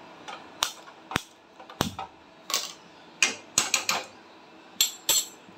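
About a dozen sharp, irregularly spaced clicks and knocks at a stove being switched on to heat a pan, some with a brief metallic ring.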